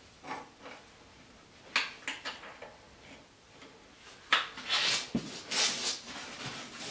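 Metal parts clinking, knocking and scraping as a rear PTO gearbox is shifted into place on a garden tractor's steel frame: a few sharp clicks a little under two seconds in, then a stretch of scraping and rattling from about four seconds.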